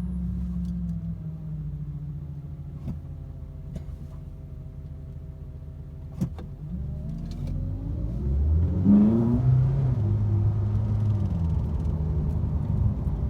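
Ferrari 458 Italia's V8 and gearbox running, recorded to show an unexplained noise from the gearbox. The engine note sinks slowly for about six seconds, with a few sharp clicks, then rises quickly around eight to nine seconds, its loudest point, and holds steady after.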